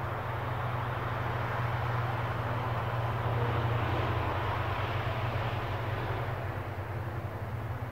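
Light propeller aircraft droning overhead, its engine hum steady while the sound swells to its loudest about halfway and then fades as it passes.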